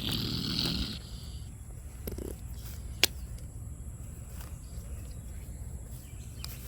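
Angry Virginia opossum hissing once in the first second, then a single sharp click about three seconds in.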